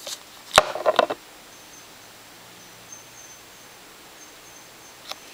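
Quiet room tone with a steady low hiss and a faint high whine. A single sharp click comes about half a second in, followed by a brief fragment of voice.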